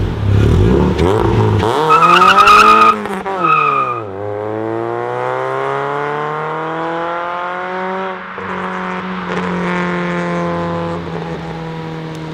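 Ford Fiesta ST Mk6's 2.0 four-cylinder engine pulling away hard, its revs climbing with a short tyre squeal about two seconds in. The pitch drops at a gear change around four seconds, then rises steadily through a long pull, shifts again near eight seconds and fades as the car drives away.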